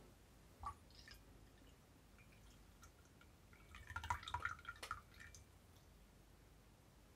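Coffee poured from a French press into a cup of milk: a short, quiet trickle and dribble about four seconds in, after a faint click near the start.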